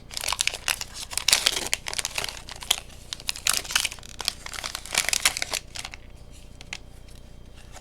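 Foil booster-pack wrapper crinkling and tearing as a Pokémon card pack is opened by hand. It dies away about six seconds in, leaving only a few faint clicks.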